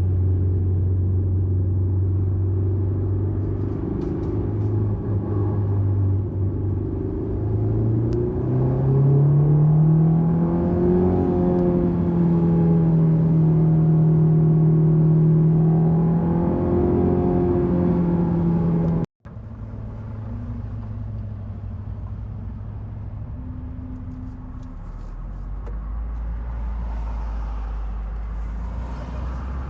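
2001 Honda S2000's 2.0-litre inline-four engine under way, holding a steady note, then rising in pitch about a third of the way in and holding the higher note. After a momentary break about two-thirds through it comes back quieter and lower, falling further near the end.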